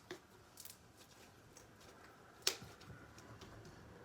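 Slime and its container being handled: faint, scattered small clicks and crackles, with one sharper click about two and a half seconds in.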